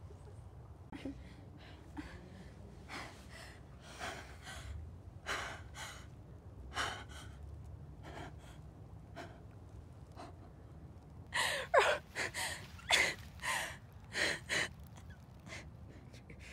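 A young woman's short, breathy gasps, scattered at first, then a quick run of sharper, louder gasps about twelve seconds in.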